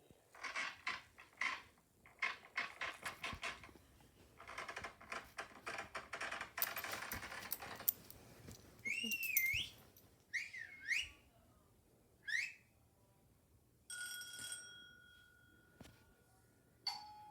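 A string of played-back sound effects: a run of rapid buzzing pulses, a few seconds of hissing, then several wavy, sliding whistles, a steady electronic beep of about two seconds, and the first note of a doorbell-like ding-dong chime near the end.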